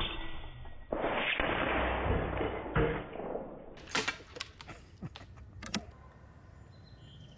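.30-calibre Skout Epoch PCP air rifle firing once with a sharp crack at the start. A couple of seconds of rough noise follow, then a loud knock about four seconds in and a run of sharp clicks.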